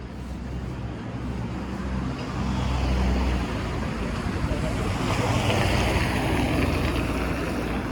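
Street traffic: a motor vehicle passing close by, its low engine rumble and tyre noise on the road building over the first few seconds and staying loud.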